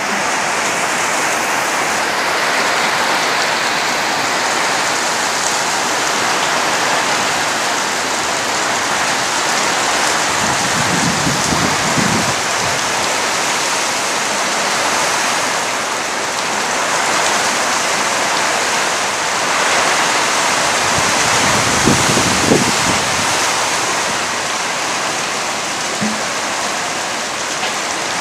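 Heavy rain pouring steadily onto corrugated metal sheet roofs and trees, a dense even hiss. Brief low rumbles come about eleven seconds in and again about twenty-two seconds in.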